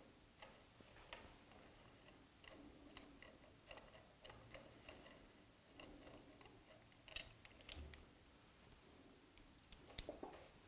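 Faint, irregular clicks and light metal taps of a hex key turning M4 socket head cap screws that fasten a magnetic DRO scale to a lathe cross slide, with a sharper click about ten seconds in.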